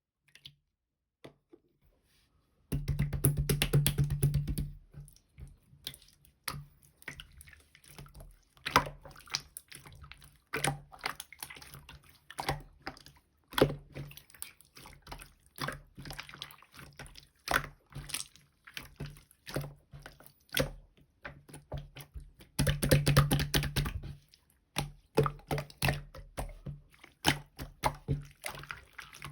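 Clear slime being squished and pressed by hand, making sticky wet clicks and pops. There are two stretches of fast, dense crackling, one about three seconds in and one about twenty-three seconds in, with scattered single clicks between them.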